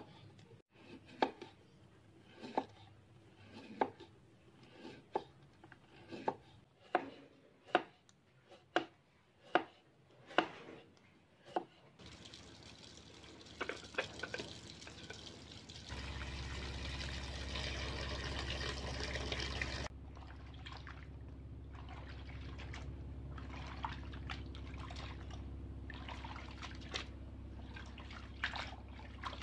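A knife cuts thin cassava slices against a wooden board, with sharp chops about once a second that quicken for a few seconds. About twelve seconds in, this gives way to water running from a hose into a bucket of cassava slices, which gets louder and then drops back suddenly. After that comes a lower steady rush of water with small splashes as hands stir and wash the slices.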